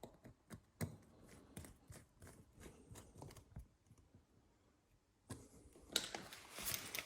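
Light clicks and taps of hands working a motorcycle inner tube's valve stem at the rim, then a brief quiet spell, then a rushing hiss that starts near the end.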